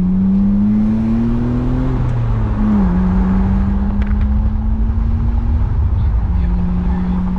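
BMW Z4's straight-six engine through catless headers, heard from inside the cabin while driving. The pitch rises for about two seconds under acceleration, drops sharply at an upshift nearly three seconds in, then holds a steady cruising note.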